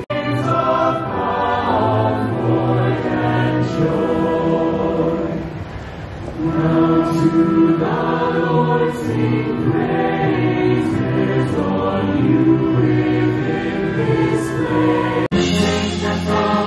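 A large mass choir singing a Christmas carol with a live orchestra. The music cuts off abruptly near the end and switches to a different passage, with trumpets playing.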